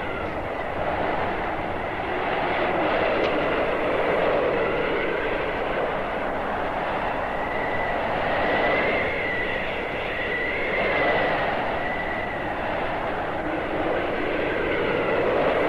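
Blizzard wind howling: a steady rushing noise that swells and fades every few seconds, with a thin whistle that rises and falls over it, loudest in the middle.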